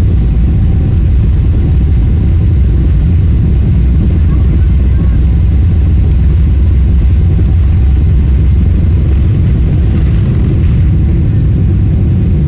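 Boeing 777-300ER's GE90 turbofan engines at high takeoff thrust, heard inside the economy cabin as a loud, steady low roar.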